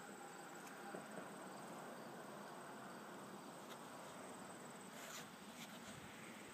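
Quiet background with a faint steady hiss and a few light clicks and rustles from hands working among the engine's wiring.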